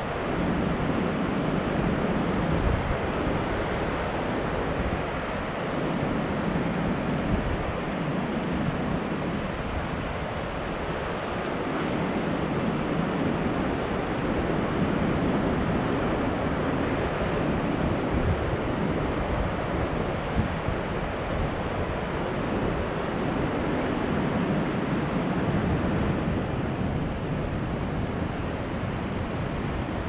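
Ocean surf washing steadily against rocks, with gusty wind buffeting the microphone as a low, uneven rumble underneath.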